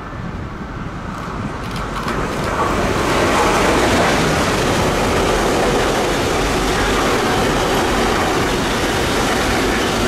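Container freight train wagons rolling past at close range on the near track, a steady rail rolling noise that swells over the first three seconds and then holds.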